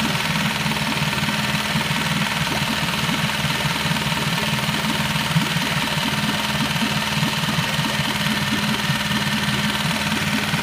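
Honda 5 hp four-stroke outboard motor running steadily with its cowling off, its lower unit in a test barrel of water, firing evenly and smoothly.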